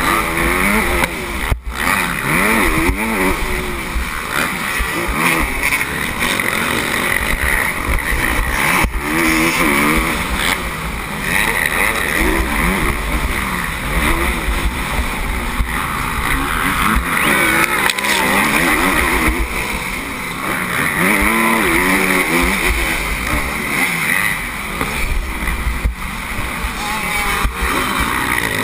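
Motocross bike engine heard close up through a helmet-mounted camera, revving up and falling off again and again as the rider accelerates out of turns and backs off into the next.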